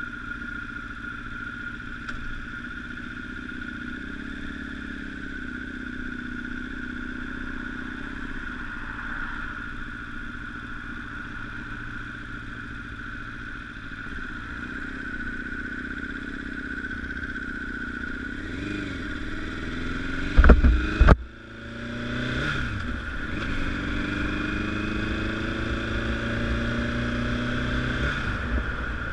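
Honda CBR1000RR sportbike's inline-four engine running on the move. About two-thirds of the way through there is a short, very loud thump, after which the engine note climbs steadily as the bike accelerates.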